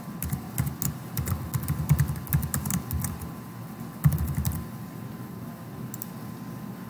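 Typing on a computer keyboard: a quick, uneven run of keystrokes for about four and a half seconds, the last stroke the loudest, then it stops.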